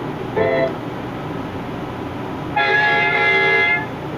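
Cartoon sound effect of a baby robot reacting to a food it has eaten: a short tone about half a second in, then a big noise about two and a half seconds in, one steady held tone with many overtones lasting just over a second.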